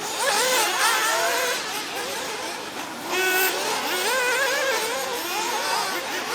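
Several 1/8-scale nitro buggies' small two-stroke glow-fuel engines revving up and down as they race, overlapping whines rising and falling, with one engine louder about three seconds in.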